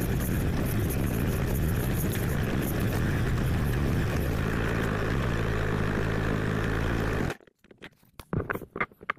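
Offroad motorcycle engine running steadily under a rush of wind noise, cutting off abruptly about seven seconds in. A few faint knocks follow.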